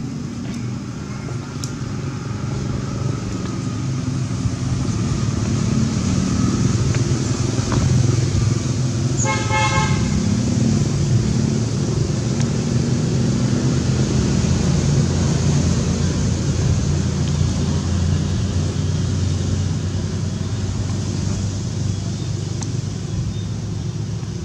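A motor vehicle's engine runs steadily and grows louder through the middle, then fades a little. About nine seconds in, a horn gives one short, choppy toot.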